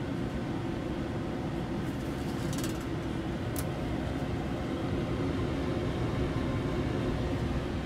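Steady low hum of background room noise, with a few faint clicks near the middle.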